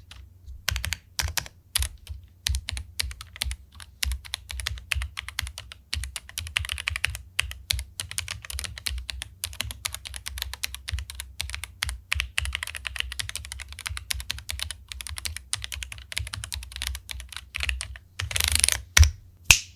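Typing on a Jedel WKL-100 75% mechanical keyboard: a steady stream of irregular key clicks, with a louder, faster flurry of keystrokes near the end.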